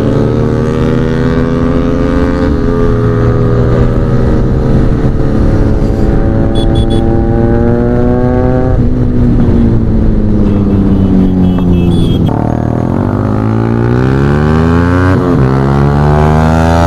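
Sport motorcycles with SC Project aftermarket exhausts being run hard. The engine pitch climbs steadily for several seconds, drops off sharply, sinks as the throttle eases, then climbs again with a quick dip near the end, all over a heavy rush of riding wind.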